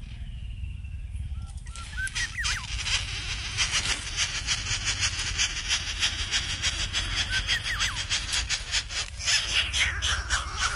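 Greater coucal nestlings begging as they are fed, a dense run of harsh, rasping calls that starts about two seconds in, with a few short thin chirps among it. A low wind rumble runs underneath.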